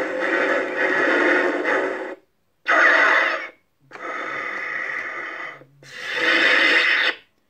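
Thinkway Darth Maul electronic money box playing music clips through its small, tinny speaker in four bursts with short silences between.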